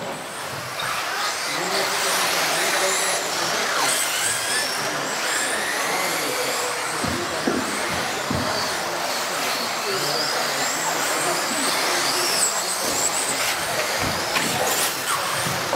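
Several electric RC off-road cars racing on an indoor track, their motors whining and rising and falling in pitch as they speed up and brake, over a noisy hall background. Occasional short knocks among the whines.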